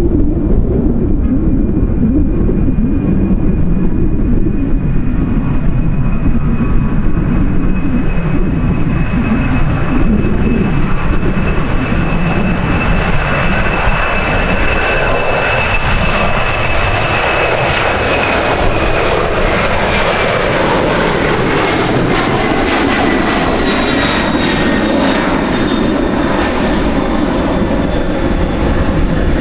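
Jet airliner's engines passing: a thin high whine that slowly falls in pitch and a roar that swells to its fullest about two-thirds of the way through. Low wind buffeting on the microphone runs underneath.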